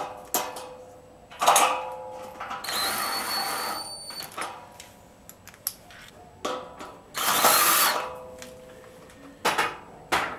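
Power drill-driver driving screws into a steel gate post, in two runs of about a second each with a steady motor whine, with metal clinks and rattles between them.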